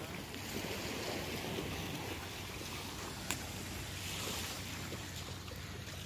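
Gentle surf washing onto a sandy beach, with wind on the microphone, and a single sharp click about three seconds in.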